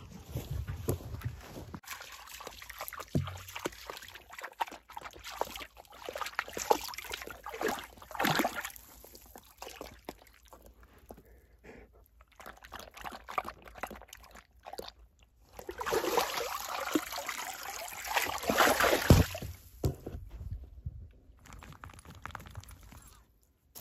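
Water sloshing and trickling as a lurcher wades in a shallow stream, in irregular bursts that are loudest in the second half.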